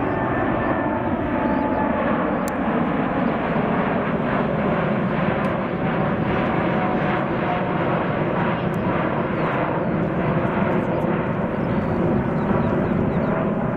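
Boeing 747-8's four GEnx-2B turbofan engines at climb power, a loud steady jet rumble with a whine that falls slightly in pitch as the aircraft passes.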